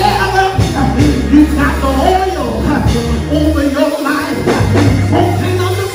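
A preacher's amplified voice, in a half-sung chanting delivery, over live church music with long held bass notes.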